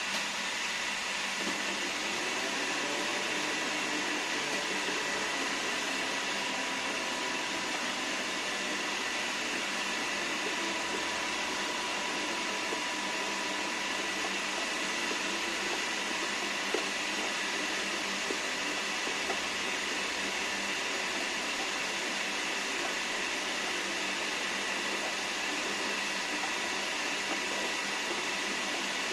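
Electric hand mixer motor running steadily with a constant whine, without change in speed.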